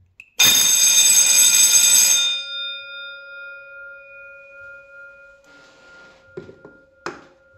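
Large red electric alarm bell: a click from the wireless push button, then the bell rings loud for about two seconds and stops. Its gong rings on, fading over several seconds, with a few light knocks near the end.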